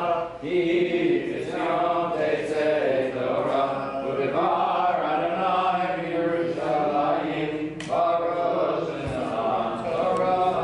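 Voices chanting a Hebrew liturgical prayer during the Torah service, sung in phrases with short breaks between them.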